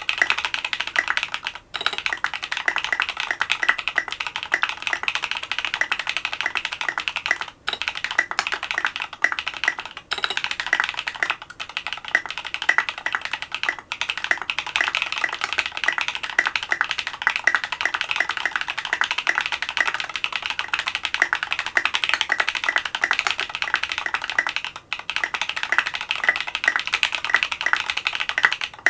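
Fast, continuous typing on a Duck Orion V3 custom mechanical keyboard with lubed Holy Panda tactile switches, an FR4 plate and SA-profile keycaps, with a few brief pauses between bursts of keystrokes.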